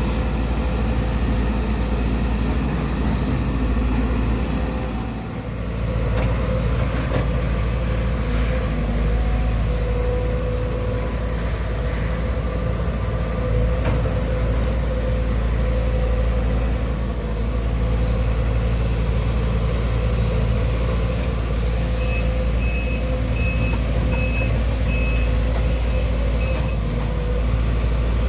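Heavy diesel engine of a Sumitomo SH-210-6 excavator running steadily, briefly easing off about five seconds in. A run of short high beeps, like a machine's travel alarm, sounds near the end.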